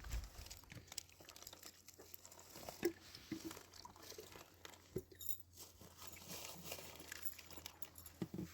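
Faint crinkling and rustling of plastic snack packets and bags, with scattered small irregular clicks and crackles.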